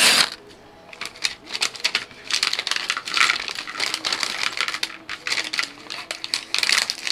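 Foil-lined LEGO minifigure bag crinkling as it is handled and shaken out, with small plastic LEGO pieces clicking and clattering into a plastic tray in a quick run of taps.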